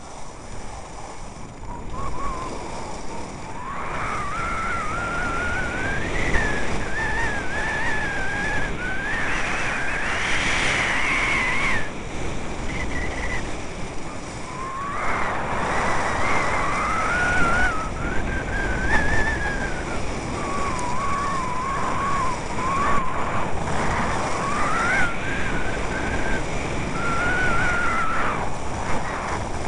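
Skis running down a snow piste: a steady rush of wind on the microphone and skis scraping over the snow, with a thin whistle that wavers up and down through most of it.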